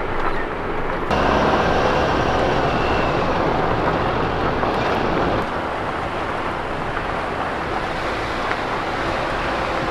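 Jeep driving on a dirt trail: steady engine, tyre and wind noise, stepping up in level about a second in and dropping slightly around five and a half seconds.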